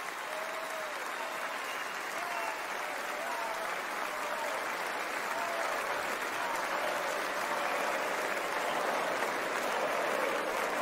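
A large convention crowd applauding, the applause swelling gradually louder.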